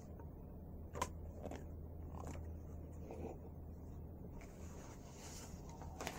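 Faint handling of a picture book: a few light taps and knocks, then the rustle of a page being turned about four to five seconds in, over a low steady hum.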